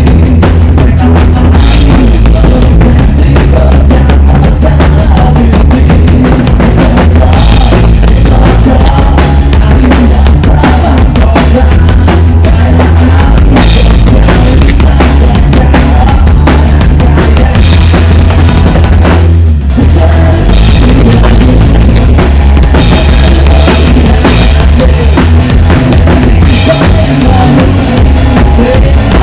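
Live rock band playing loud with the drum kit to the fore, bass drum heavy in the low end, recorded close to the drums and near overload. There is a brief break in the playing about twenty seconds in.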